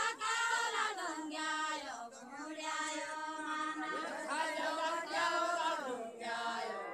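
A group of voices singing a Deuda folk song unaccompanied, in long drawn-out phrases of held notes that glide in pitch, pausing briefly between phrases.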